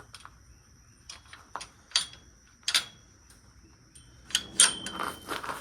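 A few scattered, irregular clicks and light knocks, the loudest pair near the end, over a faint steady high-pitched tone.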